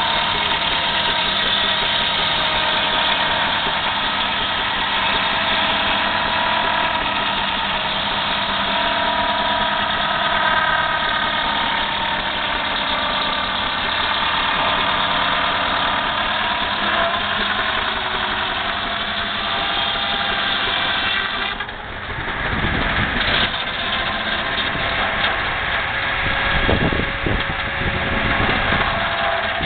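Engine running steadily, holding several level tones. About 22 seconds in the sound changes to an uneven low rumbling.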